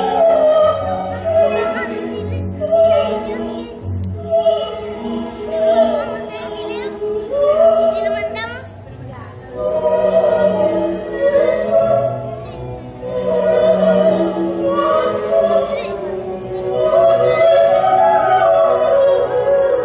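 Choral music: several voices holding long sung notes with vibrato, swelling and fading in waves, with a quieter stretch about halfway through.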